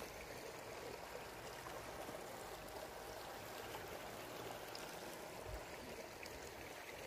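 Steady rushing and gurgling of a small stream flowing.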